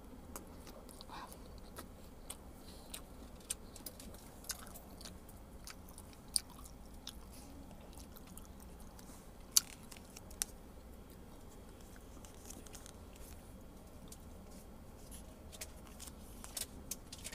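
A person chewing a mouthful of instant cup noodles, the chewing soft and close, with scattered sharp clicks throughout; the loudest click comes a little past halfway.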